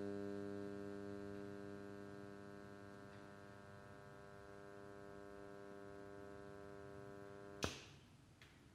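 Electrical mains hum, a steady buzz of many evenly stacked tones, slowly fading over the first few seconds and then holding level. It cuts off suddenly with a sharp click near the end, followed by a fainter click.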